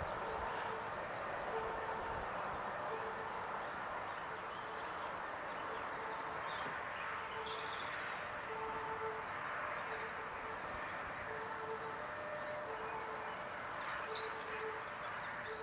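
Outdoor ambience of birds singing: high chirping trills about a second in and again near the end, over a steady rushing background and a short low note repeating a little faster than once a second.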